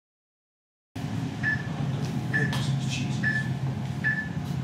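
Lift car running with a low steady hum, starting about a second in, and a short high beep repeating about once a second, the lift's floor-passing signal.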